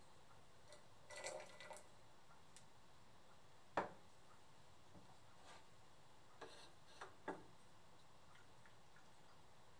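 Quiet kitchen handling sounds. Coffee trickles from a moka pot briefly, about a second in. Then comes one sharp clack as the metal pot is set down on the gas stove's grate, followed by a few lighter knocks and clinks of a ceramic mug and jug.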